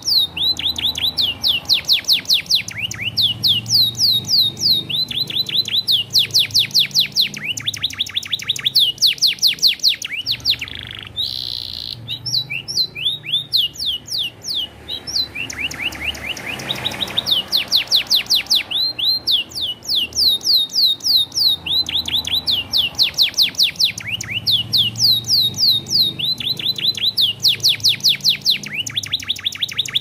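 Domestic canary singing a long, nearly unbroken song: phrase after phrase of rapid trills made of quick falling high notes, with a short held whistle about eleven seconds in and a lower, slower trill a few seconds later.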